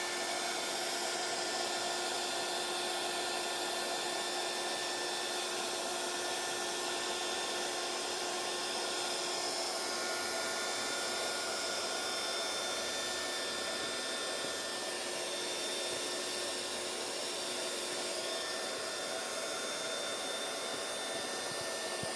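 Electric heat gun running steadily, a constant rush of blowing air with a faint steady whine, as it shrinks heat-shrink tubing over a soldered wire joint.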